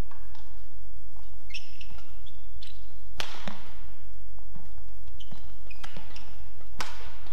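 Badminton rally: rackets striking the shuttlecock, loudest twice about three and a half seconds apart, with fainter knocks and sneakers squeaking on the court mat in between, over a steady low hum.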